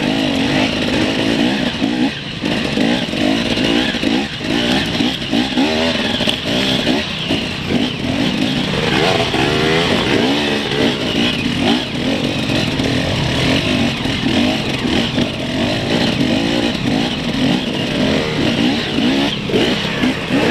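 Enduro dirt bike engines revving up and down continually in short bursts at low trail speed. The rider's own bike climbs a narrow, rutted dirt track with other dirt bikes running just ahead.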